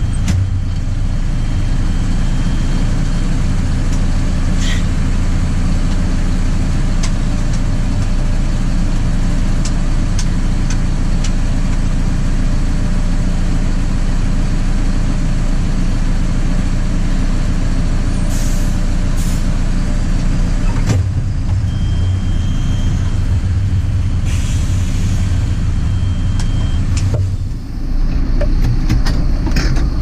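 JCB 4CX backhoe loader's diesel engine running steadily, heard from inside the cab. A thin high tone comes and goes, and there are a few short clicks and hisses. The sound dips briefly about 27 seconds in.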